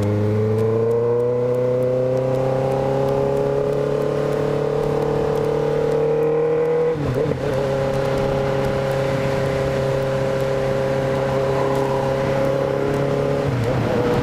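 Motorcycle engine and exhaust under way: the pitch climbs slowly for about seven seconds, breaks off briefly as the rider changes gear, then holds steady, with another short break near the end.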